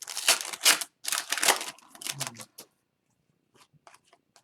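Hockey trading cards being handled and flipped through, with the pack wrapper: a run of quick papery rustles and slides for about two and a half seconds, then a few faint light clicks.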